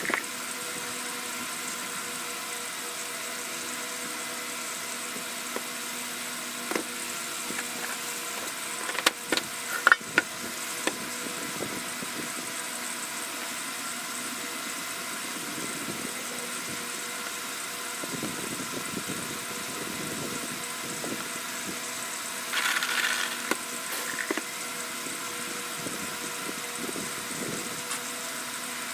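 A steady machine hum, made of several fixed pitches over a hiss, runs without change. A few sharp clicks come about a third of the way in, and a short rustling burst about three quarters of the way in.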